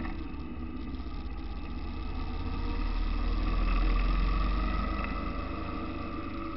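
Car engine running with road noise as the car drives along, the rumble swelling louder about four seconds in and then easing off again.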